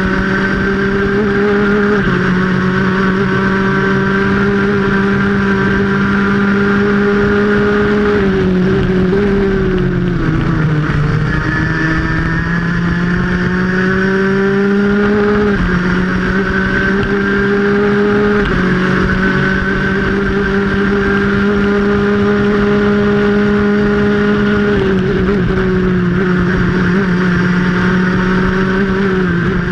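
Stock Honda superkart engine heard onboard at race speed. It holds high revs with small steps in pitch, drops sharply about eight to ten seconds in as it slows for a corner, then climbs back up over the next few seconds. Wind rushes over the microphone throughout.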